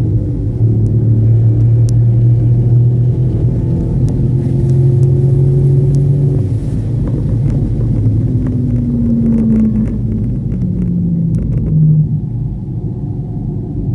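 Car engine running at a steady, low engine speed with road rumble, then its revs falling as the car slows, and the sound drops off about twelve seconds in.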